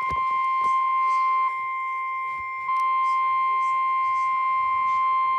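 NOAA Weather Radio warning alarm tone: one steady, loud electronic beep held without a break, which announces that a warning is about to be read. Its level dips for about a second in the middle.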